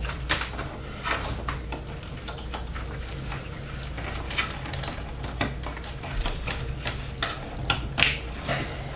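Scattered light clicks and rustles of power-supply cables and plastic connectors being handled and routed inside a PC case, over a low steady hum.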